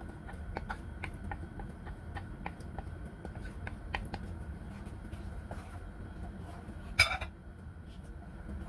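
Curry sauce cooking in a non-stick frying pan as it is poured in and stirred with a wooden spatula: scattered small pops and ticks over a low steady rumble, and one sharp clack of the spatula against the pan about seven seconds in.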